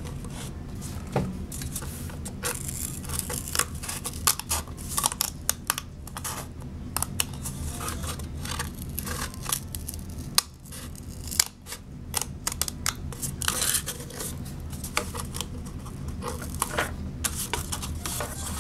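Scissors snipping into the side of a paper cup, a run of short, irregular cuts and crackles of the stiff paper.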